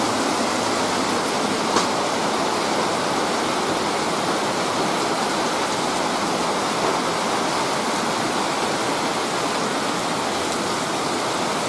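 Steady hiss of a rain shower falling outdoors, even throughout.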